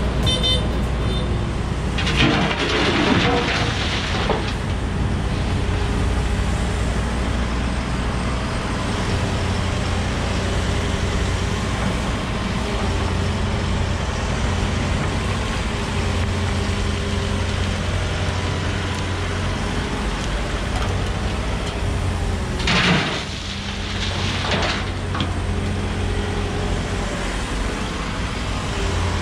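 Diesel engines of a Volvo EWR150E wheeled excavator and a Volvo FMX truck running steadily at work during loading, with a louder rushing noise about two seconds in and again near the end.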